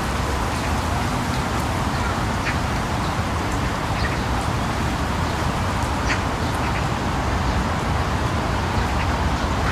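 Steady storm noise of wind and rain, heaviest in the low rumble, with scattered faint ticks.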